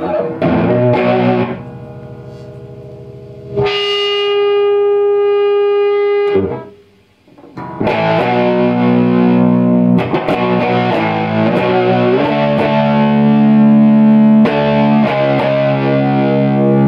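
Electric guitar played through a compressor/fuzz/sustainer circuit, with a distorted, fuzzy tone. A chord is struck at the start, then a single note held with long, even sustain from about four seconds in, cut off suddenly near six and a half seconds, before a run of sustained fuzz chords from about eight seconds on.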